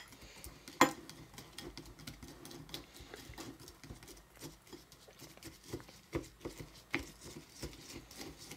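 A utensil stirring and pressing a sticky cookie-crumb mixture in a bowl: soft scraping with scattered light clicks against the bowl, and one sharper click about a second in.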